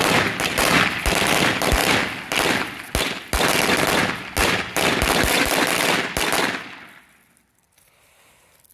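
A string of firecrackers going off in a rapid, irregular crackle of sharp bangs, dying away about seven seconds in.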